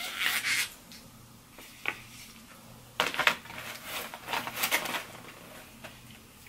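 Short scrapes and clicks of a styrofoam cup and a plastic spoon being handled close to the microphone: the lid coming off and the spoon going into the cup, in a few separate bursts.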